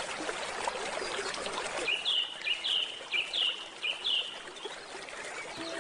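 A gentle stream flows steadily, and a bird gives four short chirps in a quick series starting about two seconds in, each rising and then dipping.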